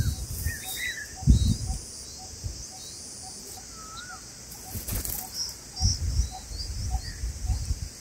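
Red-vented bulbul's wings flapping as it flies off and back to its nest, heard as several low thumps, with short chirping bird calls early on. Faint thin peeps sound through the second half, and a faint ticking repeats about twice a second.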